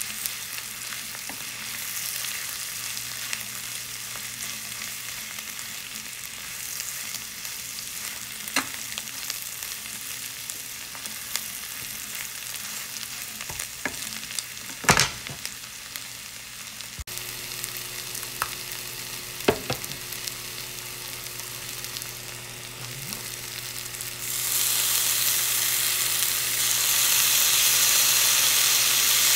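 Greens, onions and peppers sizzling in a nonstick frying pan while being stirred with a wooden spoon, with a few sharp knocks of the spoon against the pan. About 24 seconds in, the sizzle jumps louder and stays up.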